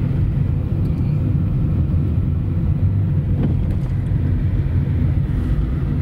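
Steady low rumble of a car's engine and tyres on the road, heard from inside the moving car's cabin.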